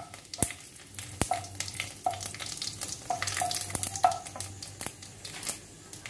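Whole spices for a tempering (cumin seeds, bay leaf, dried red chilli, clove, cardamom, cinnamon) sizzling and crackling in hot oil in an aluminium kadai, with a few sharp pops in the first second and a half. A wooden spatula stirs them, scraping the pan about once a second.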